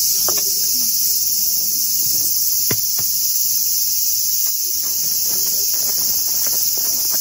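Continuous high-pitched buzzing chorus of cicadas, steady throughout, with a few faint taps.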